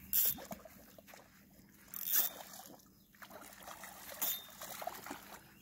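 A hooked carp thrashing at the surface in shallow water at the bank, splashing three times about two seconds apart, with smaller splashes after the last.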